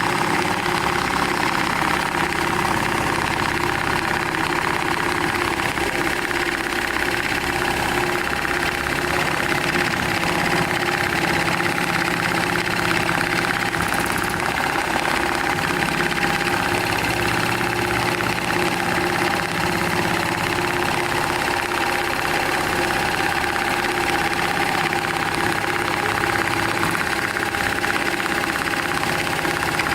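Programmable profile-stitching sewing machine running steadily, its motor and needle mechanism giving a continuous fast mechanical whir with a steady hum.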